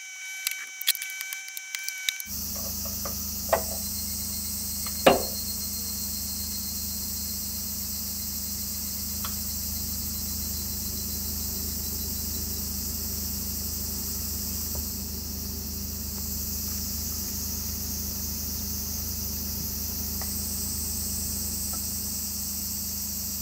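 Insects chirping in a steady high chorus over a low steady hum. A few light clicking taps come first, and a few seconds in there are two knocks, the second louder and sharper.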